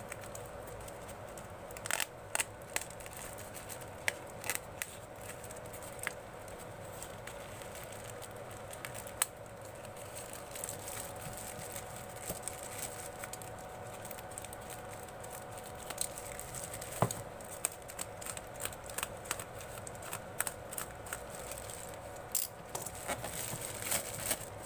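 Thin plastic wrapping crinkling and tearing as it is slit with a snap-off utility knife and pulled open by hand, with scattered short crackles and clicks.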